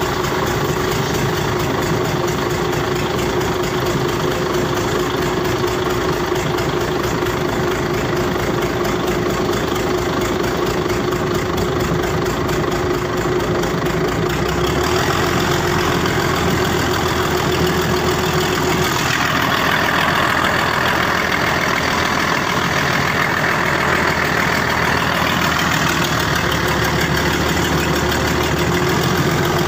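Mitsubishi 6D16 six-cylinder diesel engine running steadily. Its note changes about halfway through, and again a few seconds later, as a higher-pitched band comes up.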